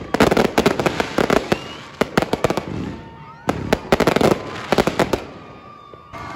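Aerial fireworks display: rapid bangs and crackling bursts in two dense volleys, with a short lull between them, thinning out near the end.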